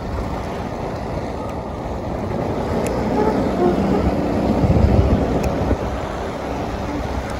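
Low rumble of a motorbike riding along a road, with wind buffeting the microphone. It grows a little louder around four to five seconds in.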